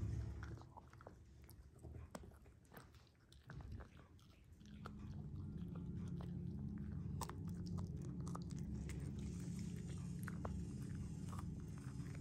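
Yorkshire terrier chewing a bone: irregular sharp crunches and clicks of teeth on bone. A steady low hum comes in about four and a half seconds in and runs under the chewing.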